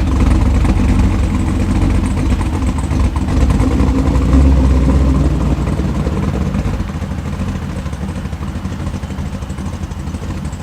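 6.0-litre L76 V8 of a 2009 Pontiac G8 GT running, a steady low rumble that swells briefly about four seconds in and then grows gradually quieter.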